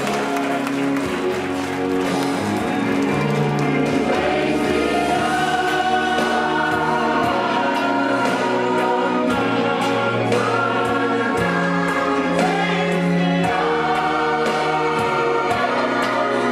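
A choir singing held, sustained notes together, with the audience clapping along in a steady beat.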